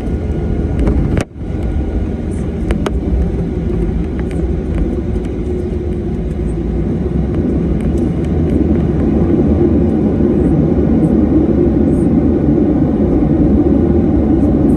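Steady low rumble of a passenger jet's engines heard from inside the cabin as the airliner taxis, growing slightly louder in the second half. The sound drops out briefly about a second in.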